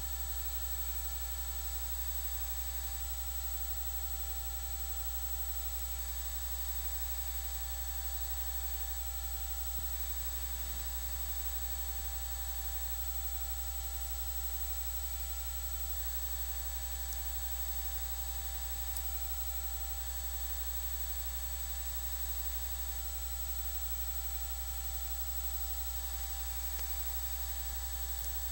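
A steady electrical hum and hiss with faint fixed whining tones, unchanging throughout and with no hoofbeats, voices or crowd sounds.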